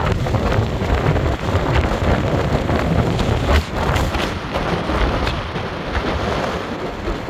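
Wind buffeting the microphone with road noise from a moving car: a steady low rumble that gusts up and down.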